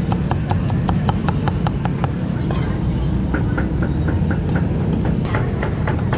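A steel cleaver chops roast pork on a thick wooden chopping block in rapid, even strokes, about five a second. After a pause with a thin high squeal, there are a few more chops near the end, over a steady low rumble of street traffic.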